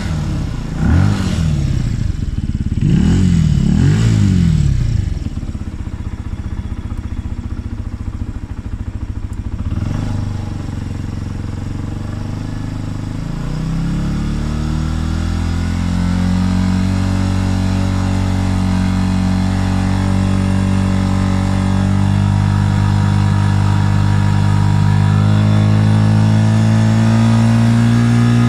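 Benelli TNT 125's single-cylinder 125 cc air-oil-cooled engine being revved in neutral: several quick throttle blips in the first few seconds, then a lower, steadier running for several seconds. About halfway through, the revs climb and are held at a steady high rpm, growing a little louder near the end.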